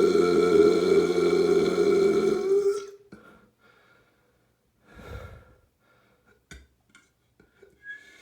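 A person's long, loud burp, steady in pitch, dipping slightly as it trails off about three seconds in. Then quiet, with a soft low noise about five seconds in and a few faint clicks.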